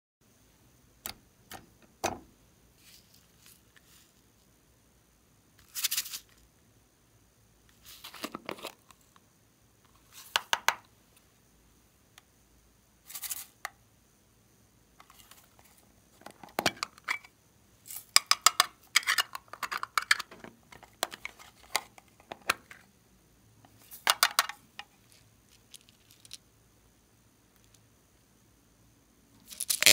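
Small plastic topping containers being handled and opened, with foam beads, sequins and glitter shaken out onto slime in glass dishes, heard as short, separate rattling and crinkling bursts. The bursts come closest together in the middle stretch.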